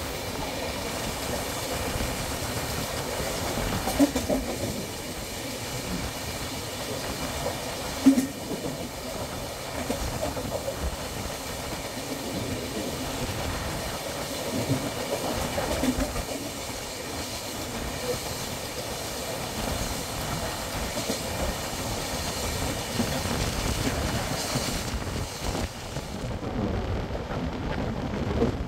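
Passenger train running: a steady rumble and rattle of wheels on the track, with two sharp knocks about four and eight seconds in. The high hiss drops away near the end.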